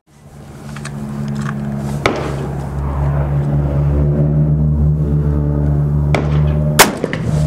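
A steady low engine drone, like a vehicle idling close by, with a sharp click about two seconds in as the 1889 Remington double-barrel 12-gauge is closed. Near the end comes one sharp, very loud shot as the left barrel fires its black-powder load.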